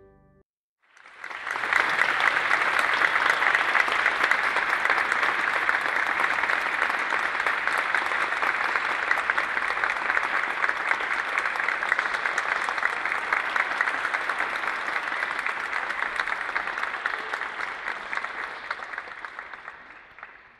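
Audience applause in a church. It swells up about a second in, holds steady and dense, and fades out near the end.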